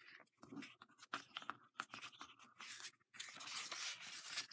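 A paper page of a picture book being turned by hand: soft rustling and crackling with small clicks, building to the loudest rustle near the end as the page swings over.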